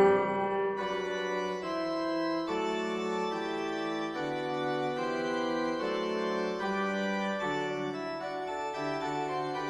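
Background music: sustained organ-like keyboard chords changing about every second or two.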